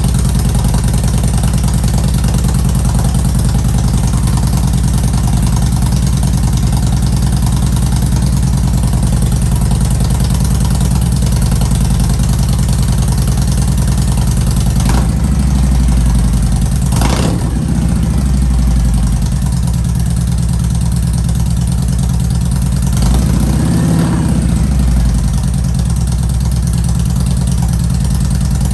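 Kawasaki Vulcan Voyager 1700 V-twin idling through new Sharkroad 4-inch slip-on mufflers, with a couple of brief throttle blips in the second half that rise and fall in pitch.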